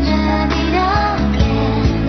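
Background music with a steady beat, bass and a melody line.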